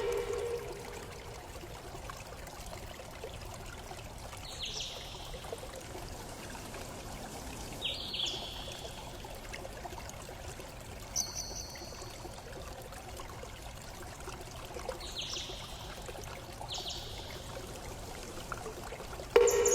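Bird chirping: short, high chirps that dip slightly in pitch, about six of them a few seconds apart, over a steady rushing noise like running water. Near the end a louder, lower-pitched call begins.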